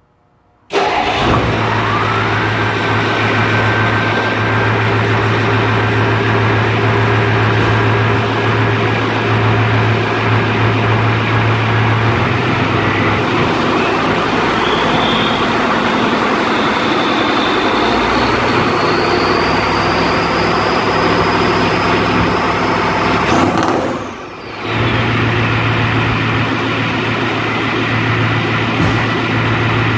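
1993 Ford F250's 7.3 IDI turbo-diesel V8 catching about a second in and running steadily, freshly fitted with new glow plugs, with a thin turbo whistle that rises in pitch over the diesel clatter. The level drops briefly about 24 seconds in, then the engine sound resumes.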